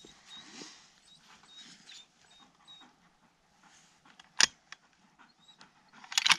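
Faint dog whining and panting, with one sharp metallic click about four seconds in and a quick rattle of clicks near the end from the Tikka rifle's bolt being handled after the shot.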